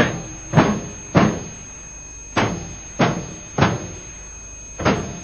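Large barrel drums beaten by hand: six single heavy beats, mostly in pairs or threes about half a second apart, each with a short ringing tail. They mark the pauses in a public proclamation of a royal decree.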